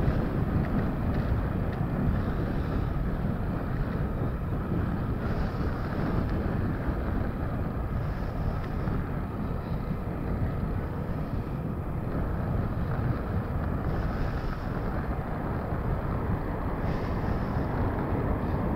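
Boeing 737-800's CFM56-7B jet engines during a go-around on a missed approach, heard as a steady, even rumble as the jet moves away, with wind on the microphone.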